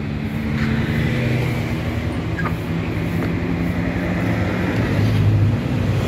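Motorcycle engine running steadily with a low, even drone.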